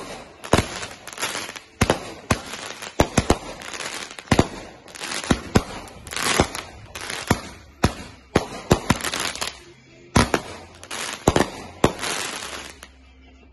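Aerial fireworks going off in rapid succession: over twenty sharp bangs with crackling between them, stopping about a second before the end.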